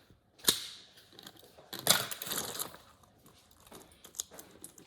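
Hard plastic fidget toy being handled and twisted by hand: a sharp click about half a second in, a louder rattling scrape around two seconds in, then scattered lighter clicks.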